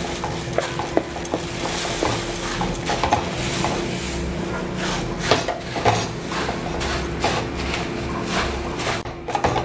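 Puffed rice being poured into a steel kadai of hot syrup and stirred in with a spatula: a steady dry rustle of the grains with repeated scrapes and clicks of the spatula against the pan.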